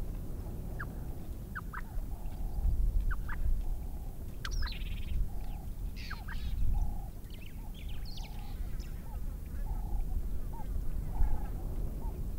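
Wild birds calling: scattered short chirps and quick sweeping whistles, over a short lower note repeated about once a second, with a steady low rumble underneath that swells a few times.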